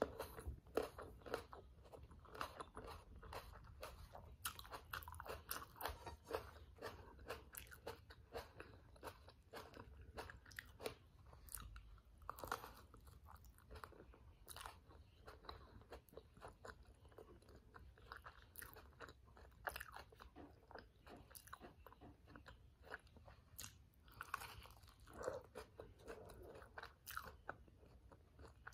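Close-miked chewing and biting of a toasted tortilla wrap with vegetable filling: a steady run of small, irregular sharp clicks and wet mouth sounds, with a few louder bites.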